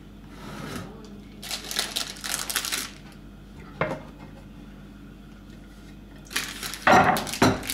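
Kitchen handling sounds: a plastic wrapper rustling, a single click, then a wooden cutting board knocking and clattering as it is set down on the counter near the end, the loudest part.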